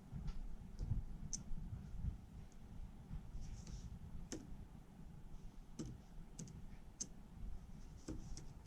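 Irregular, sparse clicks of computer keyboard keys as a web address is typed in, over a low background hum.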